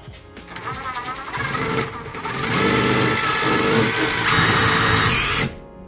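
DeWalt cordless driver spinning a lag bolt down into a wooden workbench: a wavering motor whine that grows louder and harsher about two and a half seconds in as the bolt takes up load, then cuts off suddenly near the end.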